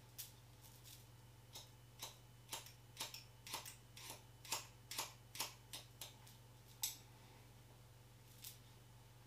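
Hairdressing scissors point cutting a lifted section of hair: a run of quick, crisp snips, about two a second, that stops about seven seconds in, with one last snip near the end.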